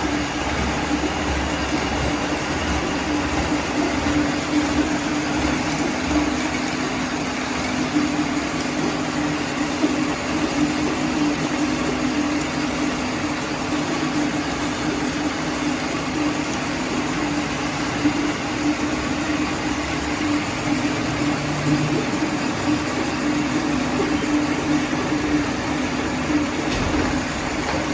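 Milling machine cutting the teeth of a large gear rack: steady machining noise with a constant low tone running through it.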